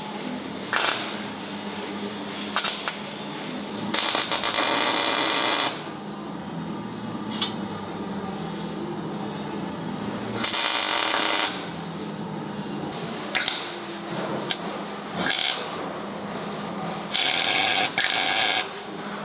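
MIG welder laying tack welds: a string of crackling, sizzling bursts, some quick tacks and a few lasting one to two seconds, over a steady low shop hum. The tacks fix a rear axle to the differential and frame.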